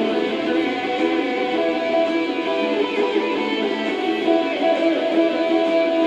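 Heavy metal karaoke backing track in an instrumental break, with electric guitars to the fore and no singing.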